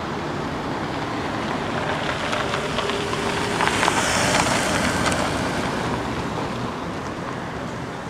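A motor vehicle passing along the street, its noise swelling to a peak about halfway through and then fading, over steady traffic noise.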